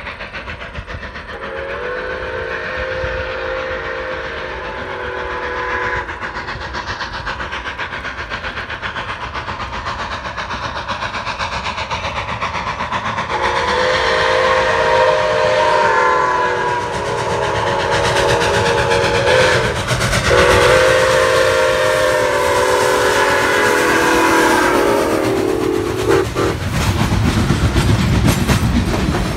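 Milwaukee Road 261, a 4-8-4 steam locomotive, approaches blowing its steam whistle, several tones sounding together, in four long blasts: one about two seconds in, then three in close succession from about 13 s to 26 s. The train grows louder as it nears, and near the end the passenger cars roll past with a clickety-clack of wheels on rail joints.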